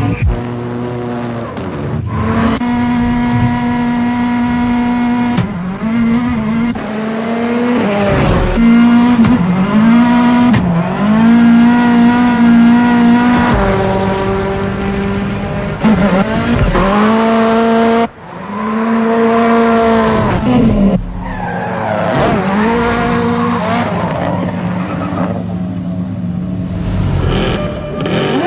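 Ford Fiesta rallycross car's turbocharged four-cylinder engine revving hard, its pitch rising and falling repeatedly through drifts, with tyres squealing. The sound changes abruptly several times as the shots cut.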